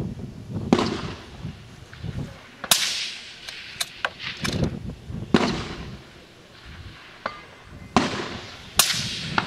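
Precision rifle fired repeatedly from a barricade, a shot every two to three seconds, each crack trailing off in an echo, with light clicks of the action being worked between shots.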